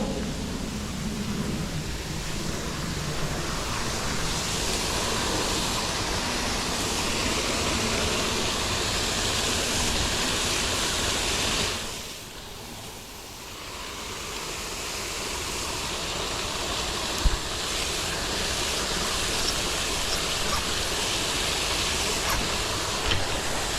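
Steady rush of a small waterfall's falling water. It drops away suddenly about halfway through and swells back over a few seconds, with one sharp click a little later.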